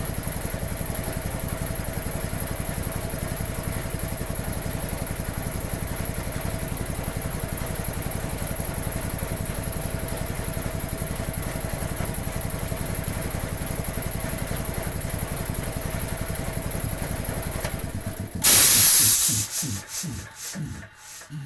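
1950s Quincy 320 belt-driven air compressor running steadily at about 700 rpm with a fast, even pulse. About 18 seconds in, a loud burst of air hiss comes as it shuts off, and the compressor coasts to a stop, its pulses slowing and fading.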